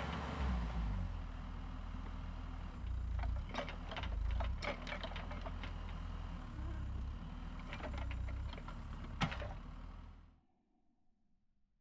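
Bobcat 435 compact excavator's diesel engine running and swelling under load, with sharp knocks and cracks scattered through it. The sound cuts off suddenly about ten seconds in.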